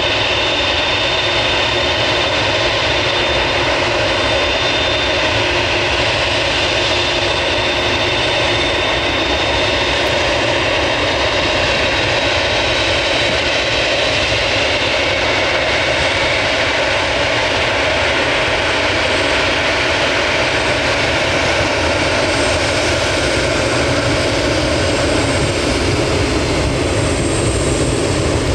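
The four GEnx-2B turbofan engines of a Boeing 747-8 freighter running at taxi power: a steady jet engine noise with a thin, high fan whine that fades out about halfway through.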